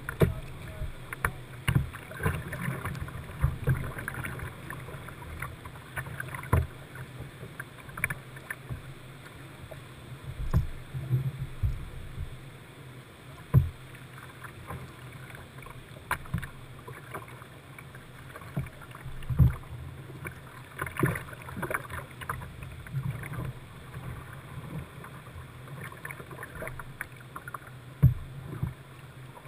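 Whitewater kayak paddling: irregular splashes of paddle blades dipping into the river over a steady wash of moving water.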